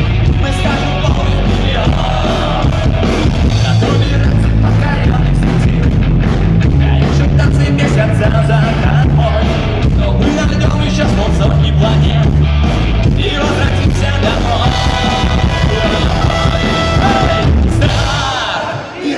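Live rock band playing loudly, with heavy bass and drums, a short drop in level near the end.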